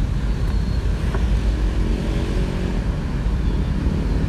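Steady low rumble of road traffic, with a faint click about a second in.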